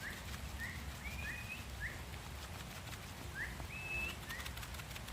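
A bird calling in short rising chirps, about two a second, a few of them drawn out into a longer level whistle. A low steady rumble runs under them.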